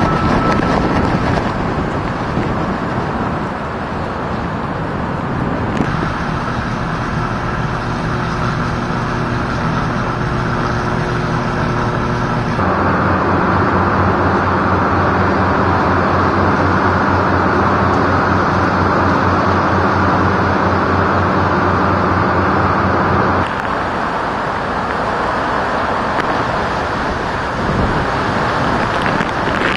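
Hurricane wind and heavy rain: a loud, steady rushing noise that changes abruptly several times. Through the middle stretch a steady low hum runs under it.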